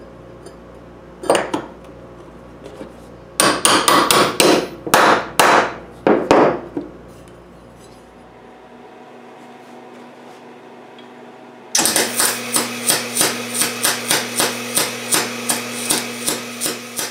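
Hammer blows on steel as a flat-bar spoke is tapped into a tight-fitting steel ring: one blow about a second in, then a rapid run of blows. After a pause, a 110-volt MIG welder's arc starts crackling with an even pulse, about four a second, as the spoke is welded into the ring.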